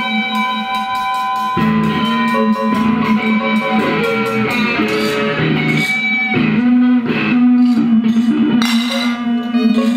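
Electric guitar playing ringing, sustained notes over a steady low drone, with light clicks and taps scattered through.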